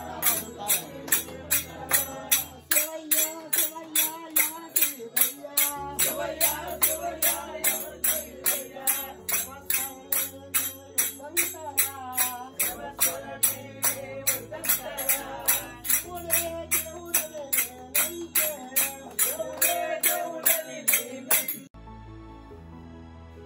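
Group of men singing a devotional bhajan, kept in time by small hand cymbals struck about three times a second. Near the end it cuts off suddenly and soft instrumental background music takes over.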